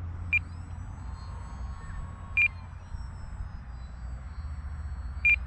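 Small electric RC aerobatic plane's motor whining faintly high overhead, its pitch slowly sliding, over a steady low wind rumble on the microphone. Three short high beeps stand out, near the start, in the middle and near the end.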